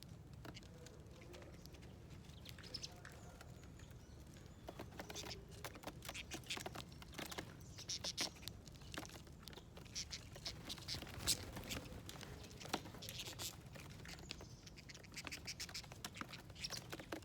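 Small birds pecking and tapping at seeds and nuts on a feeder plate: many quick irregular clicks, sparse at first and much busier from about five seconds in.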